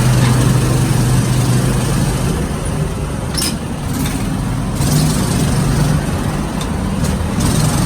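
ATV engine running during a ride, a low hum that shifts in pitch a couple of times under a loud rushing noise.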